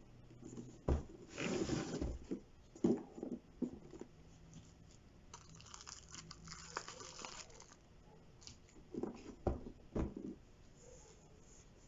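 Cardboard toy box and its plastic packaging being handled and opened: rustling and tearing, with a few knocks and taps.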